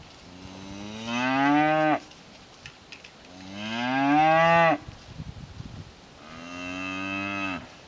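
A cow mooing three times, each moo a long call of a second and a half to two seconds that rises in pitch and swells before cutting off. The second moo is the loudest.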